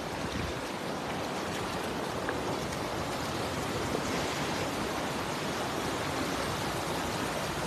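Steady churning and splashing of water as a large mass of fish thrash at the surface inside a net in a shallow river.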